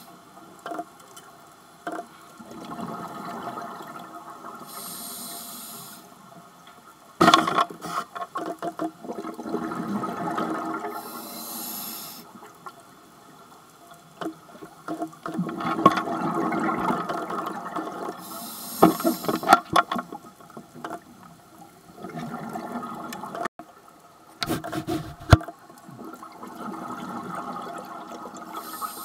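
Scuba diver breathing through a regulator underwater: a short hissing inhale followed by a long rush of exhaled bubbles, about four breaths in all. A few sharp knocks and clicks cut in between the breaths.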